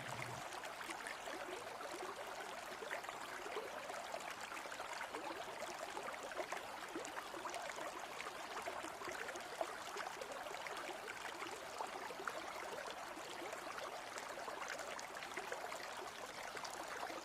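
A shallow river's water running and trickling steadily.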